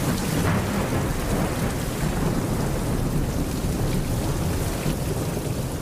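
Heavy rain with a low, continuous thunder rumble, a steady dense hiss over a deep rumble.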